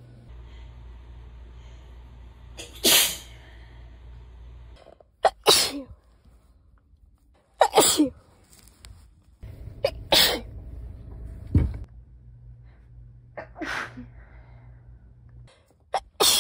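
A woman sneezing about six times, each sneeze a short sharp burst, one sneeze from each of several clips joined end to end. A low steady background hum changes from clip to clip.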